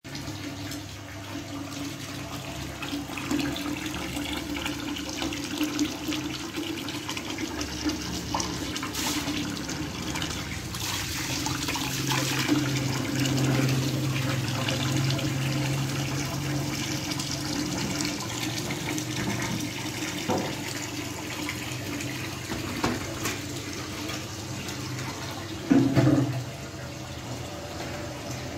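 Tap water running through a hose into a large stainless steel dough-mixer bowl, splashing into the water already pooled in it. A brief louder thump comes near the end.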